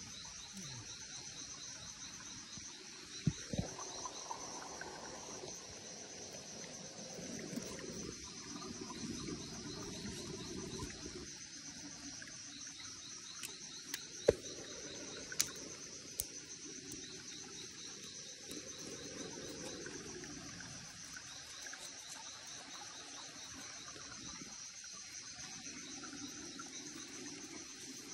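Forest insects chirping in a steady high-pitched chorus, with a fainter pulsing trill just beneath it. A few sharp clicks or snaps break in, the loudest about fourteen seconds in.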